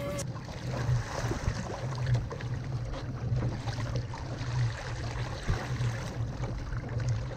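Sea water splashing and lapping against the hull of a moving fishing kayak, over a steady low rumble.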